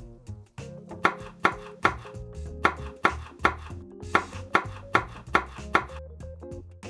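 Knife chopping on a wooden cutting board: about a dozen sharp strokes at a steady pace of roughly two and a half a second, over background music.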